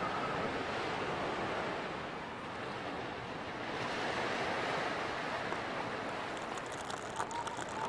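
Ocean surf: waves washing on a shore in a steady rush that swells and eases, with a few short calls near the end.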